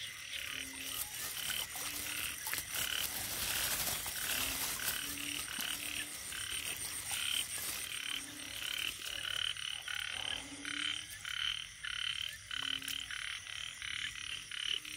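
Chorus of frogs calling after rain: many short croaks overlapping, several a second, with an occasional deeper call among them.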